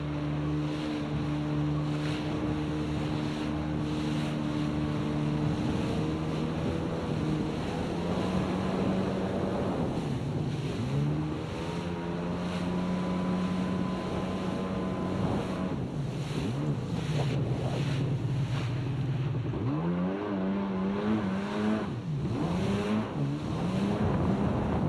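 Jet ski engine running under way. Its pitch holds steady for several seconds, then climbs, drops back and climbs again as the throttle is opened and eased, with water rushing past the hull and wind on the microphone.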